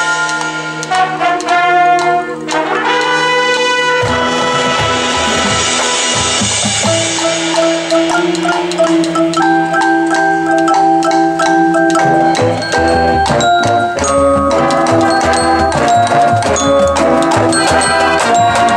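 Marching band playing its show music: brass (trumpets, trombones, sousaphones) and woodwinds holding chords over a marimba and xylophone front ensemble. A quick run of mallet notes comes about three seconds in, then shorter, detached notes.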